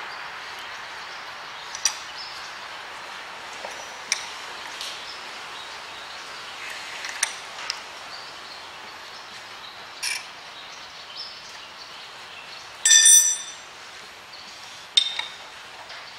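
Steel spanner clinking on nuts and the metal gear plate of a Hobart A200 mixer's gearbox as the gear retaining nuts are done up: scattered light clicks, then one ringing metallic clink about thirteen seconds in and another sharp clink soon after.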